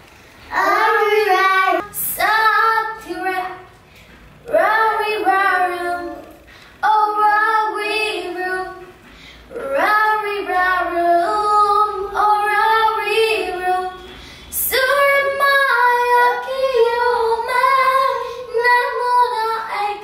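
A girl singing solo without accompaniment, in short phrases with held notes and brief pauses between them.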